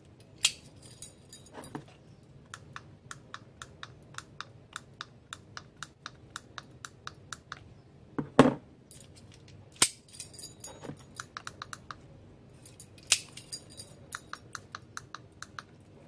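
Rapid light clicking from a smart-film door lock control set and its remote being worked by hand, about four clicks a second in several runs, with a few sharper clicks and one duller knock about eight seconds in.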